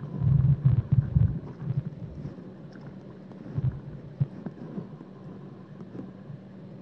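Underwater rumble and low thumps of shallow water surging at the water's edge, loudest in the first second and a half. After that come a few faint clicks over a steady low hum.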